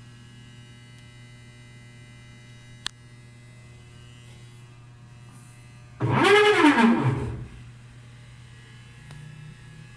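Whirlpool Xpert System washing machine during its wash cycle: a steady low hum with one sharp click, then about six seconds in a loud groan that rises and falls in pitch over about a second and a half. This is the noise the machine makes while washing, which the owner puts down to a failing clutch or actuator.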